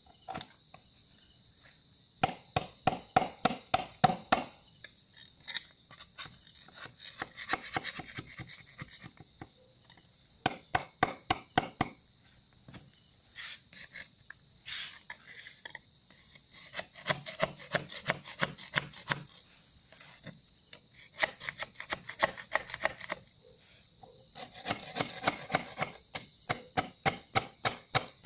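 Quick scraping strokes of a small hand tool against the ground, about four or five a second in runs of a couple of seconds with pauses between. A steady high drone of crickets runs underneath.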